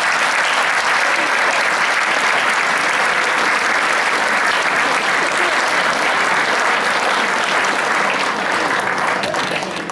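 Hall audience and band members applauding together, a dense, steady clapping that dies down near the end.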